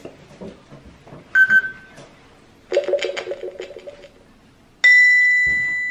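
Electronic lie detector game reading an answer: a short beep about 1.4 s in, then a rapidly pulsing buzz for over a second, then a loud steady high beep that starts suddenly near the end to give the verdict.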